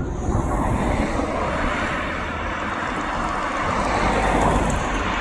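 Road traffic: cars driving past on an asphalt road, a steady tyre-and-engine noise that swells as a car passes close, loudest a little past the middle.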